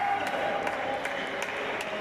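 Basketball crowd in a large indoor hall: a hubbub of voices and shouts with several scattered sharp claps.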